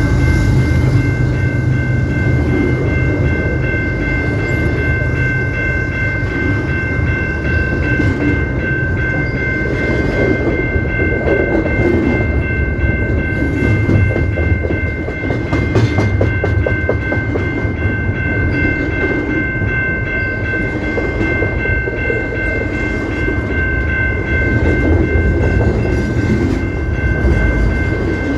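A CP Rail train rolling past with a steady heavy rumble and some wheel clatter. Three steady high-pitched tones ring over it the whole time.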